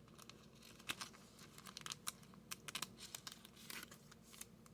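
Faint, scattered clicks and rustles of trading cards being flipped through by hand, with the crinkle of a foil pack wrapper.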